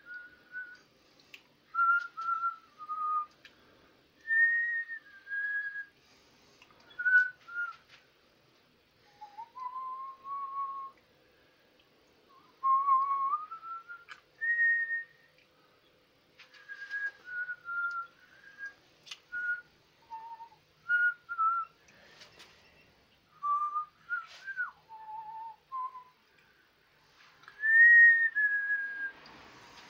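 A person whistling a tune, clear single notes in short phrases with pauses between them.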